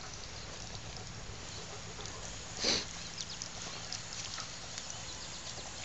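An elderly Airedale terrier gives one short, noisy breath about two and a half seconds in, over a steady background hiss.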